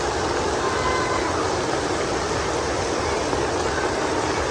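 Falling water, a loud, steady, even rushing with no breaks.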